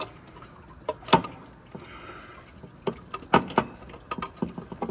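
Irregular metallic knocks and clicks as a water pump is tugged and wiggled against the engine to free it. The loudest knock comes about a second in and a quick cluster follows a little past three seconds. The pump is still held by one bolt left in at the bottom.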